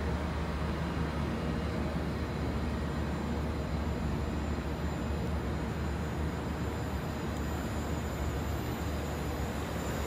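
Rooftop air-conditioning plant running: a steady low hum with a faint whir above it.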